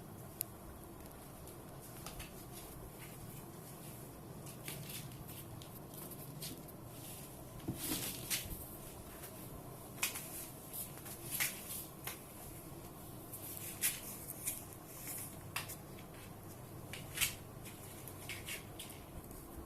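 Scattered soft rustles, scuffs and light taps at irregular intervals, a few a little louder than the rest: two cats play-wrestling, their fur brushing and paws scrabbling, with no meowing.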